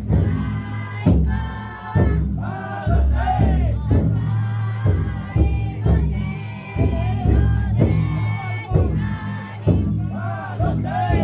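Futon-daiko festival bearers chanting and singing together as a crowd. Beneath the voices a big taiko drum is struck at a steady beat of roughly once a second.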